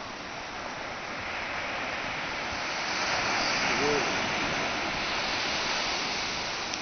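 Ocean surf washing onto a sandy beach, the sound swelling louder about three seconds in and easing off again.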